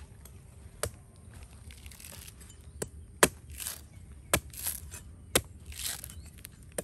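A fresh coconut being chopped open with a blade: about six sharp, irregular chops, with softer rasping sounds between the strokes.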